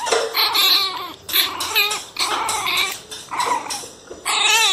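Pinscher puppies yapping in a rapid series of short, high yaps and yelps while play-fighting.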